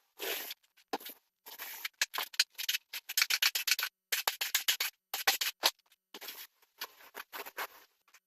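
Paintbrush strokes on a wall: a run of short scratchy brushing sounds, several a second, with silent gaps between them.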